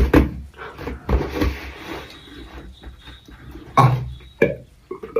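Vocal sound effects made with the mouth by a beatboxer: a run of breathy, hissing bursts, then two short loud voiced bursts about four seconds in.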